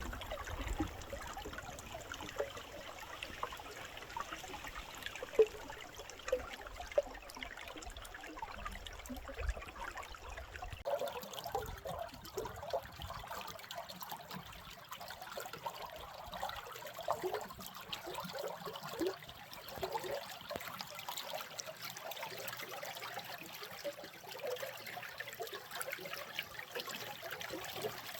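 A stream babbling and trickling steadily. A low rumble sits under it for about the first eleven seconds, then drops away.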